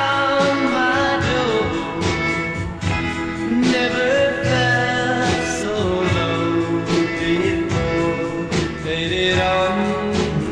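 Mid-1960s rock and roll studio recording, an outtake in stereo, with a male lead vocal over electric guitars and a steady drum beat.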